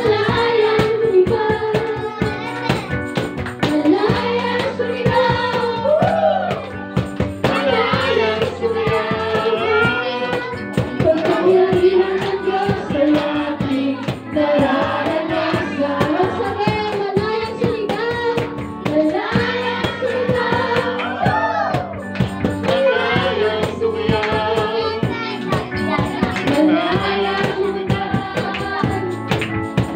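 Worship song sung by a group of voices, children's among them, over steady instrumental accompaniment.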